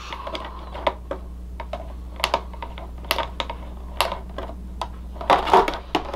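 Irregular light clicks and rattles of hard plastic being handled: an action figure's plastic packaging tray and small plastic accessory pieces, over a steady low hum.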